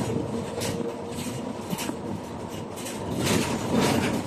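Cabin noise inside a moving city bus: the engine and tyre-on-road noise run steadily, with irregular rattles and bumps throughout.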